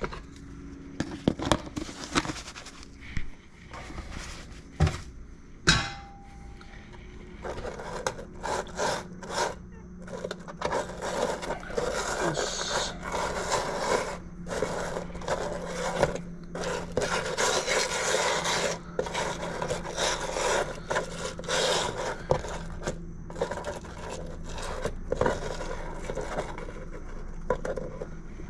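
Hands rubbing dry seasoning into raw soft-shell blue crabs on a plastic cutting tray, making a long run of scraping and rubbing with small clicks. In the first few seconds a plastic seasoning container knocks sharply several times.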